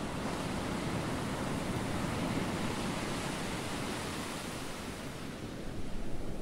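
A steady rushing noise, like surf or wind, that swells over the first couple of seconds and fades away after about five seconds.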